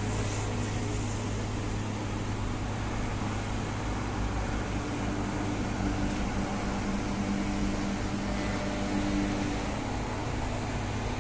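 Steady drone of highway traffic, a constant low hum with faint engine tones drifting over it.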